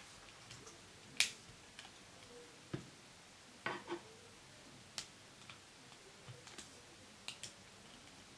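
Scattered small sharp clicks and snaps of rubber loom bands and a hook working on a small plastic loom, as bands are lifted over the pegs for a fishtail bracelet. About six clicks, the sharpest about a second in and a quick pair near the middle.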